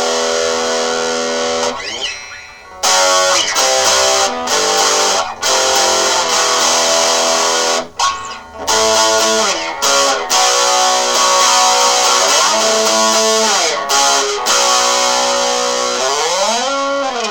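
Epiphone SG Junior electric guitar played through a small practice amp with the overdrive on: sustained distorted chords and notes with a few short breaks. Near the end the pitch glides up and back down.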